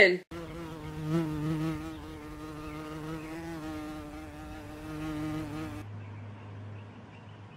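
A flying insect buzzing close by: a steady, slightly wavering drone that stops abruptly about six seconds in, leaving a faint low hum.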